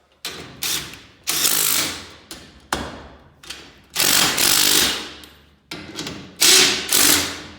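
Cordless impact driver hammering in short and longer bursts, driving lag screws to fasten a garage door torsion spring end bearing plate into the wooden jamb.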